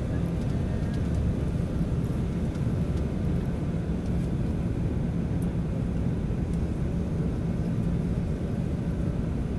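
Jet airliner cabin noise heard from a window seat over the wing during descent: a steady low rumble of engines and airflow with a constant low hum.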